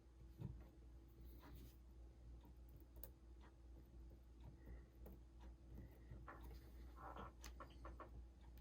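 Faint, scattered light clicks and taps of tweezers and tiny screws against a phone's metal screen bracket, over a low steady hum.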